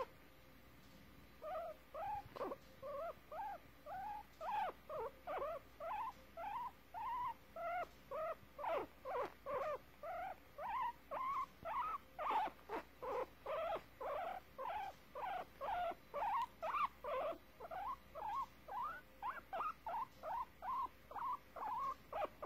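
Guinea pig squeaking in a long, even run of short pitched calls, about two or three a second, starting about a second and a half in: complaining squeaks.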